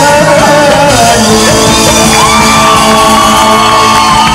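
Live Arabic pop band playing loudly: a male singer over darbuka hand drums, frame drum and keyboard. A long high note rises about halfway through and is held to the end.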